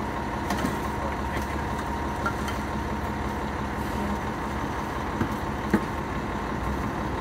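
Fire engine idling steadily at the curb. A few short sharp knocks, the loudest just before six seconds in, come from a firefighter's hook tool striking the pavement while he rakes out burnt trash.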